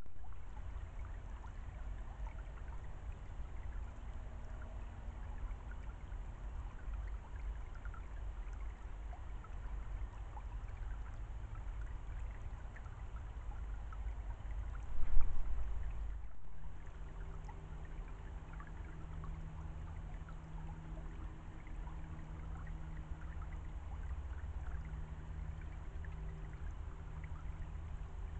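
Steady low rushing background noise with scattered faint ticks, and one brief loud bump about halfway through. From shortly after that, a steady low hum runs under the noise.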